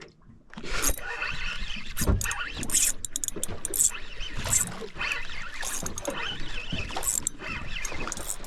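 Irregular rustling and clattering with a few sharp knocks: fishing gear and bait being handled aboard a small boat.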